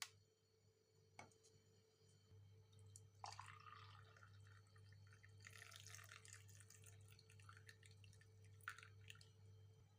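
Faint dripping and trickling of liquid, with a few light clicks and a low steady hum.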